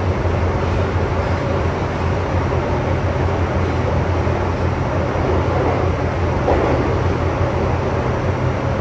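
MTR M-train electric multiple unit running through a tunnel, heard from inside the carriage: a steady rumble of wheels on rail with a low drone. A faint motor whine swells briefly about two-thirds of the way through.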